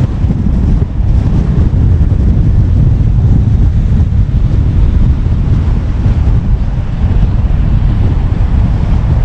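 Steady low rumble of wind buffeting a GoPro camera's microphone, mixed with road noise from the moving car.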